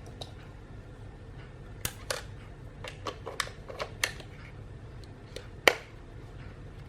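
A Canon 6D DSLR body being handled and tried for power: a scattered series of sharp clicks and taps, a cluster of about seven over two seconds and a louder single click near the end.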